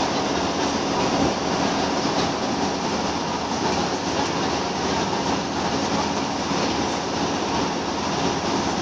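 Scania L94UB Wright Solar single-deck bus heard from inside the passenger saloon while under way: its rear-mounted 9-litre diesel engine running steadily, mixed with road and tyre noise, at an even level.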